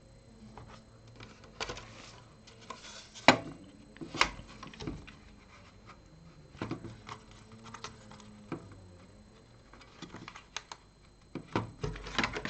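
Handling noise from an opened DAB radio: irregular small clicks, taps and scrapes of its plastic casing and parts, with two sharper knocks about three and four seconds in.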